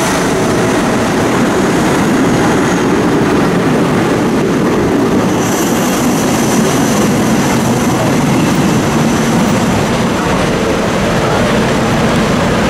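Vintage New York City subway train rolling out of an underground station, a steady loud rumble of its wheels on the rails that carries on as it pulls into the tunnel. There is a brief high squeal about halfway through.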